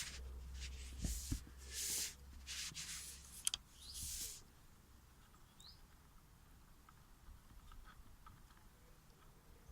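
A Lego Technic remote-controlled model running in short spurts: about six brief hissing, scraping bursts over a low hum in the first four seconds, then only faint ticks.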